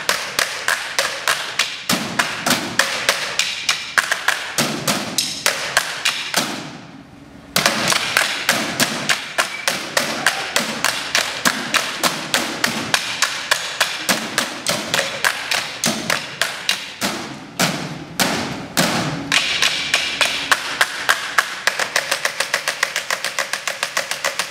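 Several drumsticks beating fast, interlocking rhythms on stacking chairs, a dense run of clicks and knocks. About a quarter of the way in the playing stops for about a second, then starts again; near the end it settles into a steady run of even, quick strokes.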